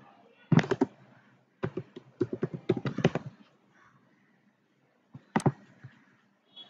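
Computer keyboard keys clicking in short irregular runs of typing, then a single sharper click about five seconds in.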